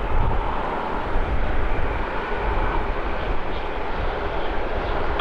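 Jet airliner engines: a loud, steady rumble with a faint whine running through it.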